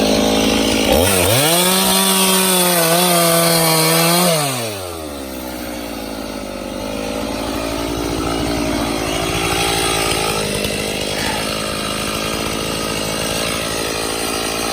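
Stihl MS391 two-stroke chainsaw revving up to full throttle about a second in, holding high speed for about three seconds, then dropping back and running on at a lower, rougher speed.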